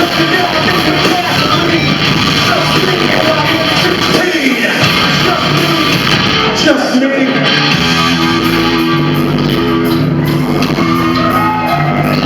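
Live heavy rock band playing loudly, with electric guitar and sung vocals. About eight seconds in, the band settles onto sustained held notes.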